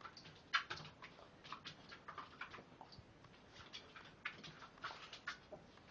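Scattered faint clicks and taps, irregular in timing, from a Bengal kitten and a Rhodesian Ridgeback puppy playing together.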